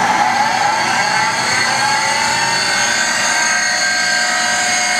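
Kombi Schliff tool and cutter grinder running just after switch-on, its motor spinning two diamond grinding wheels with a steady whine. The main tone eases slightly lower over the first two seconds, then holds steady.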